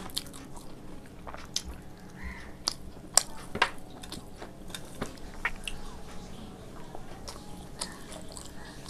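Close-miked mouth sounds of a person eating rice and curry by the mouthful: chewing with irregular sharp clicks and smacks.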